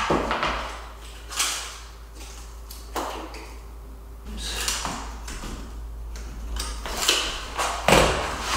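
About half a dozen brief sliding and scraping sounds with light knocks, from a tape measure and combination square being handled against a vinyl floor plank while a cut is measured and marked.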